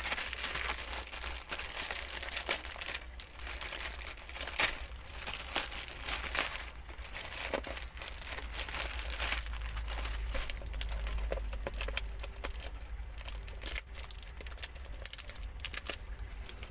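Plastic courier mailer bag crinkling and rustling as hands handle and open it, in a string of irregular sharp crackles.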